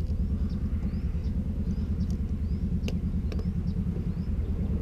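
An engine idling steadily with an even low pulse. About three seconds in come two sharp clicks as the wiper blade is worked loose on its arm.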